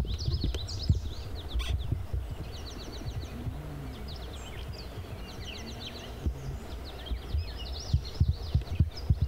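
Birds singing, with quick chirps and rapid trills, over a low rumble and sharp thumps on the microphone. The thumps are loudest near the start and again near the end.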